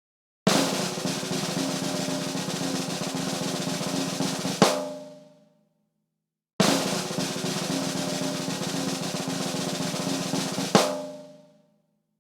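Two drum rolls, each about four seconds long, separated by a pause of silence. Each ends in a single accented hit that rings out and fades within a second.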